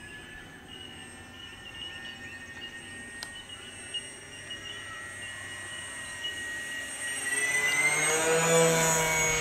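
Radio-controlled twin-engine floatplane flying by, its motors and propellers giving a steady high whine that grows loud and then drops in pitch as it makes a close low pass near the end.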